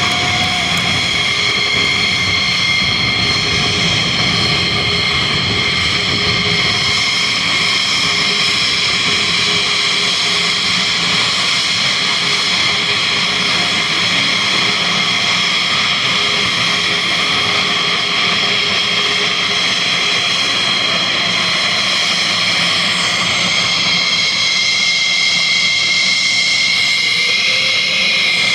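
Thunderbirds F-16 Fighting Falcon jets taxiing, their turbine engines giving a steady high whine over a rushing roar at taxi power.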